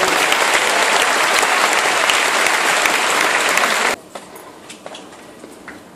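Large tennis-arena crowd applauding between points; the applause cuts off suddenly about four seconds in, leaving a hushed arena with a few faint knocks.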